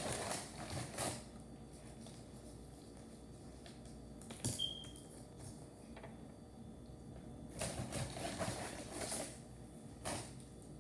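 Chewing a sandwich with crunchy Cheez-It crackers in it, heard as several short clusters of crunching, with a brief high squeak about four and a half seconds in.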